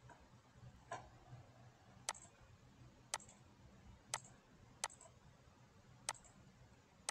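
Computer mouse buttons clicking, about six sharp single clicks roughly a second apart, as on-screen menus and pen and eraser tools are picked; faint, over a low room hum.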